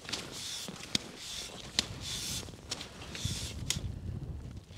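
Skis swishing through snow in a steady stride, about one hissing swish a second, with a few sharp clicks in between.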